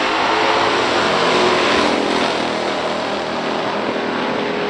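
Two big-block V8 muscle cars, a 1971 Plymouth Cuda with the 440 six-barrel and a 1968 Chevy Nova SS 396 with a 4-speed manual, accelerating at full throttle down a drag strip, heard from the grandstand. The sound eases a little as they pull away.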